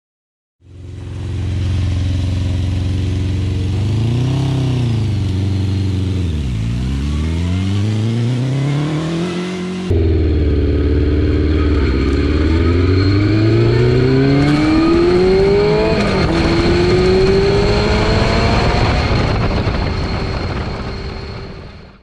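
Honda CBR600 inline-four motorcycle engine in a home-built reverse trike, revving and pulling away, its note climbing and dropping back again and again as it accelerates up through the gears. The sound starts after a brief silence and jumps abruptly about ten seconds in.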